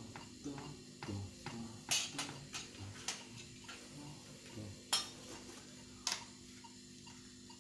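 Metronome ticking from a phone, about two ticks a second, then a few sharp, irregular clicks and knocks as the phone is handled and set down by a music stand.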